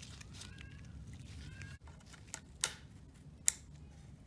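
A rubber power steering hose and its spring clamp being fitted onto a plastic reservoir: faint squeaks as the hose is worked on, then two sharp clicks about a second apart.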